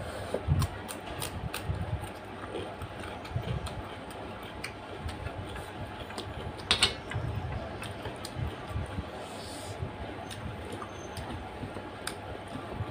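Close-miked eating sounds: wet chewing and mouth clicks while eating chicken feet and gizzard curry with rice, with fingers squishing and mixing rice and curry on a metal plate. A sharper click stands out about seven seconds in.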